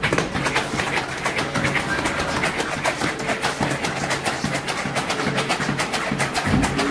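Heavy battle ropes slapping the foam floor mats in a fast, steady rhythm as they are whipped up and down, with faint music behind.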